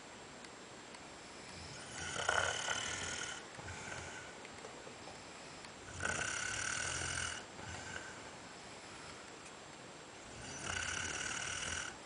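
Snoring: three long snoring breaths about four seconds apart, each followed by a shorter, fainter breath.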